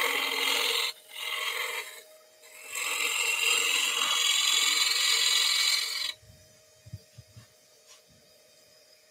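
Gouge cutting the outside of a small wooden bowl spinning on a lathe, shavings coming off in a hiss: two short cuts, then a longer one of about three seconds. About six seconds in the cutting stops, leaving the lathe's faint steady hum and a few light knocks.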